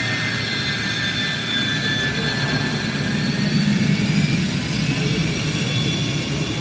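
Twin jet engines of a Boeing 757-200 airliner arriving to land, a steady rush with a high whine, a deeper rumble swelling about halfway through.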